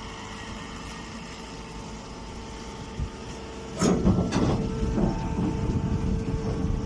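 Stationary straw baler running with a steady mechanical hum. Just before four seconds in a sharp clank sets off louder, continuous rattling and clattering as the machine works.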